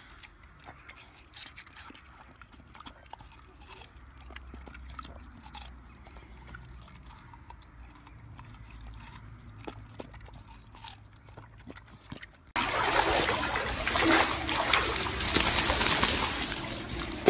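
A dog chewing on a hand-held slice of watermelon: faint wet bites and clicks. About twelve seconds in, loud splashing of pool water starts suddenly as a dog thrashes in the water.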